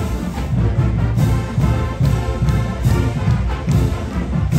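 Live marching band playing a brass-heavy tune, with sousaphones prominent among the horns, over a steady beat.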